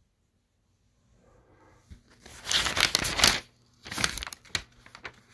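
Paper notes rustling and crinkling as they are handled. After a near-silent first second, two louder bouts come about two and four seconds in.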